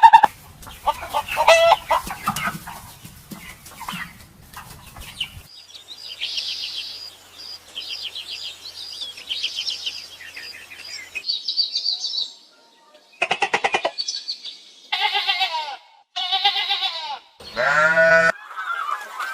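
A run of different animal calls, cut one after another. Rapid high-pitched bird twittering fills the middle. Several short pitched calls follow near the end, the last one loud and falling in pitch.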